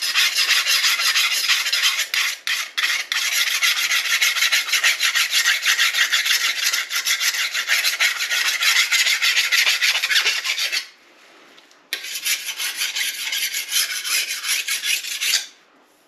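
Small hand file rasping along the steel edge of a chainsaw guide bar in quick repeated strokes, taking off the burr along the bar's rails. The filing stops for about a second a little after two-thirds of the way through, then picks up again and stops shortly before the end.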